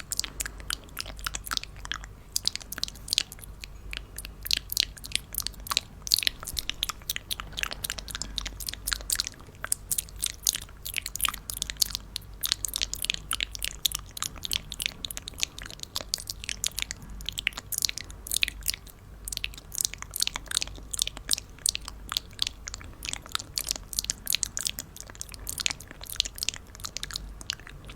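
Close-miked crunching and crackling as a piñata is broken open, with dense rapid crackles throughout.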